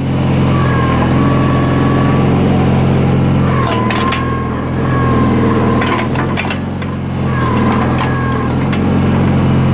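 Terramite T5 backhoe's engine running steadily while the boom is swung with the hydraulic swing control. A thin hydraulic whine comes and goes three times, the engine note dips twice under the load, and a few sharp clanks sound in the middle.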